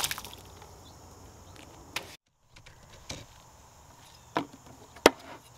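Light handling clicks and taps of a paint can and plastic tub on a workbench, a few sharp ones spread out, the loudest about five seconds in. Before them a faint background hiss breaks off into a moment of total silence.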